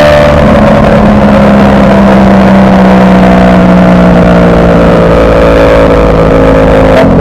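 Ducati Panigale V4 superbike's V4 engine running under way, its revs slowly falling. The engine note breaks briefly near the end.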